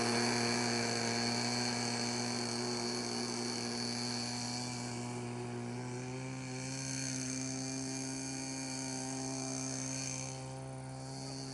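Twin-cylinder engine of a radio-controlled model airplane running steadily as the plane taxis away over grass, its sound slowly fading with distance, with a slight rise in pitch about six seconds in. One onlooker thinks the engine sounds a little lean.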